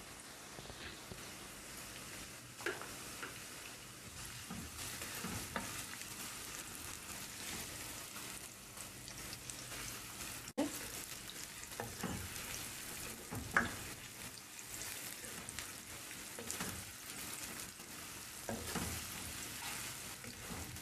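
Chopped onions sizzling steadily in hot oil in a non-stick pan as they start frying to light brown. A plastic spoon stirs them, with a few short scrapes and knocks against the pan.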